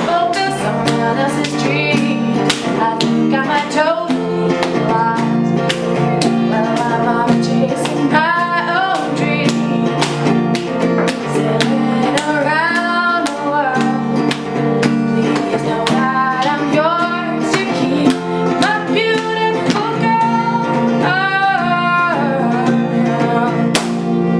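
Live acoustic music: a strummed acoustic guitar keeps a steady rhythm under a bending melody line, and the piece ends on a chord left ringing near the end.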